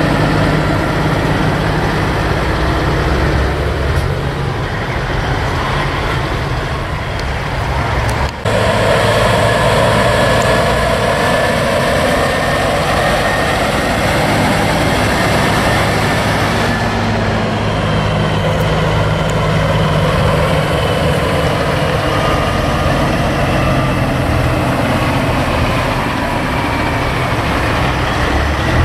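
Diesel engines of semi-trucks running steadily as the big rigs drive past one after another, with tyre and road noise. There is a brief dropout about eight seconds in.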